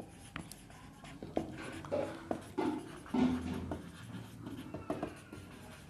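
Marker pen writing on a whiteboard: a run of short, irregular scratchy strokes with brief squeaks as a line of words is written.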